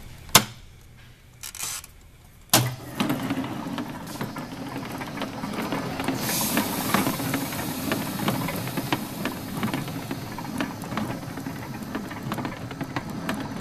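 Robinson floor tester starting up with a sharp knock about two and a half seconds in, then running steadily: its three weighted steel wheels roll round over the tile floor with a low rumble and a constant stream of clicks and rattles. The machine is at its heaviest setting, 900 pounds on steel wheels, level 14 of the Robinson test.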